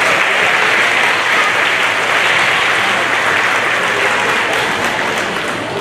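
Audience applauding, steady and dense, tapering slightly near the end.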